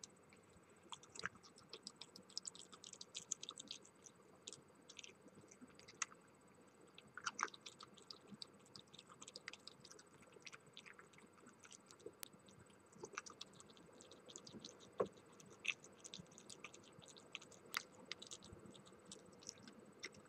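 Red fox chewing and crunching food, heard as faint, irregular clicks and crunches.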